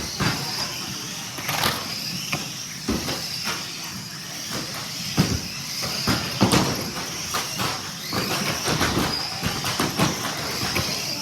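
Radio-controlled car's small electric motor whining high as it runs, with frequent irregular knocks and clatters.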